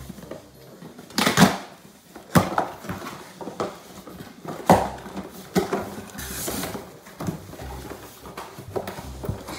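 A package being opened by hand: irregular bursts of tearing, crinkling and rustling packaging, the loudest about a second and a half in, with smaller knocks and clatters of items on the table between.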